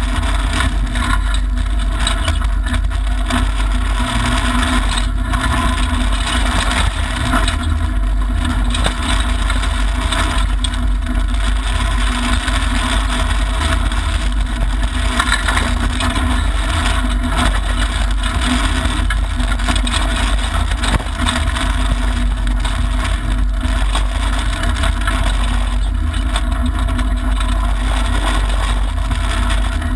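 Mitsubishi Lancer Evolution IX rally car's turbocharged four-cylinder engine running hard on a gravel stage, heard from inside the stripped cabin, mixed with tyre and gravel noise from the underbody. A steady din with small scattered ticks of stones.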